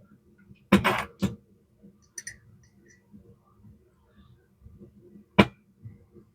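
Small metal parts and a screwdriver being handled and set down on a work table while a Vibroplex telegraph key is taken apart: two sharp knocks about a second in, a few faint ticks, then one more sharp knock near the end.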